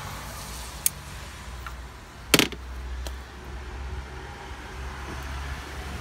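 Plastic electrical connector on an ignition coil pack being worked loose by hand: a small click about a second in, then a louder sharp snap about two and a half seconds in as the clip gives. A low steady hum runs underneath.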